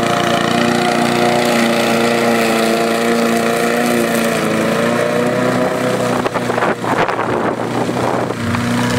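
Petrol walk-behind rotary lawn mower engine running steadily at mowing speed as it cuts grass. Past the middle it turns rough and uneven for a couple of seconds, with some irregular knocks.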